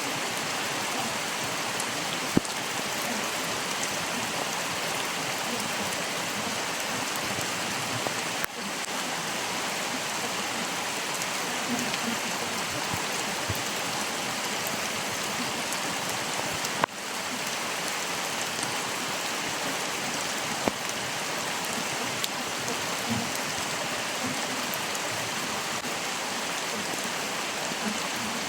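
Stream water running in a steady, even rush, with a few sharp drips or splashes here and there.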